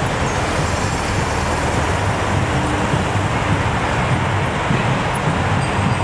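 Steady noise of dense motorway traffic streaming past on the carriageway alongside.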